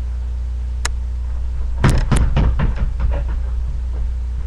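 A single sharp click, then about a second later a quick run of knocks and thuds that grows weaker and dies away, over a steady low hum.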